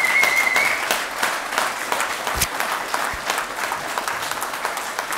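Audience applauding, a dense steady clapping. A high steady tone sounds over it for the first second, and a single low thump comes about two and a half seconds in.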